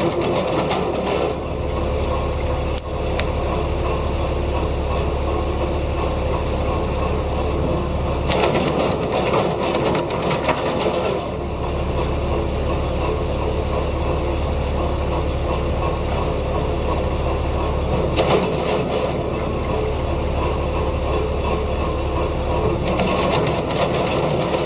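Tractor-driven wood chipper running steadily. It breaks into rapid clattering three times as wood is fed through its knives: at the start, for a few seconds about a third of the way in, and briefly about three-quarters of the way through.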